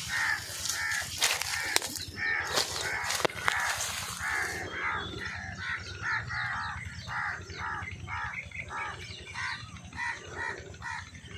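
Crows cawing over and over in short calls, about two or three a second, with a few sharp clicks in the first few seconds.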